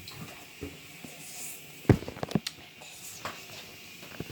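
A few short knocks and taps in a small room, the loudest about two seconds in.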